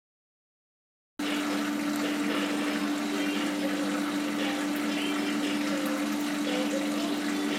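Coolant system running: white oil splashing steadily out of flexible segmented coolant hoses onto a metal lathe, over a steady machine hum. It starts suddenly about a second in.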